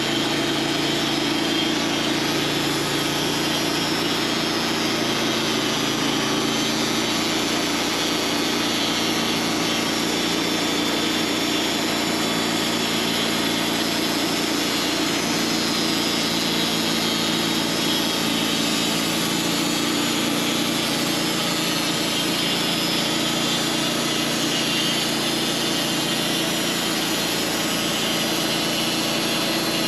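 Sawmill running steadily as it saws a honey locust log, its engine holding an even pitch throughout.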